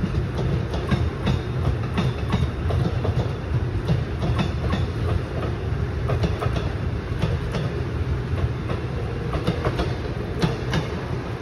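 Bilevel commuter train rolling past: a steady low rumble of the cars, with the wheels clicking irregularly over rail joints throughout.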